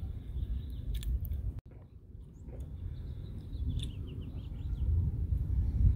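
Wind rumbling on the microphone, dropping out briefly about a second and a half in, with a few short bird chirps about four seconds in.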